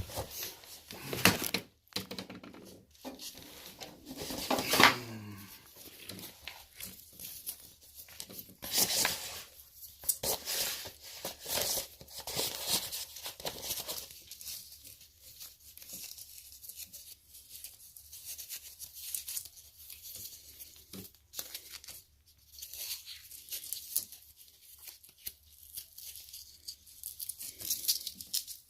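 Irregular tearing, scraping and rustling from hands-on work at a bathroom wall during drain repair, busier in the first half, with a short whir that falls in pitch about four seconds in.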